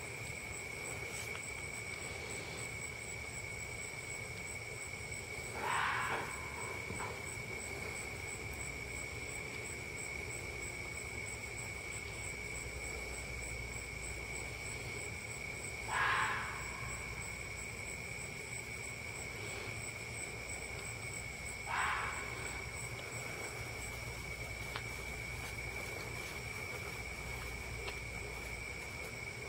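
Fox barking: three single short barks, several seconds apart, over a steady high-pitched drone of insects.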